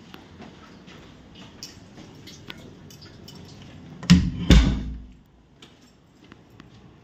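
A wooden door being opened by its handle: two heavy knocks about half a second apart, deep and boomy, that die away within a second.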